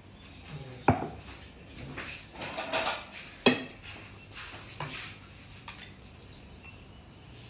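A spoon scraping coarse ginger, green chilli and garlic paste out of a stainless steel mixer-grinder jar onto a steel plate: irregular scrapes of metal on metal with sharp knocks. The loudest knocks come about a second in and at three and a half seconds, with lighter taps after.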